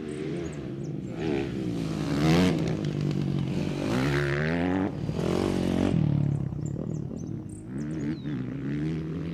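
Motocross dirt bike engine revving hard as it rides the track, its pitch climbing and dropping again several times as the throttle opens and closes, loudest about two seconds in and again around the middle.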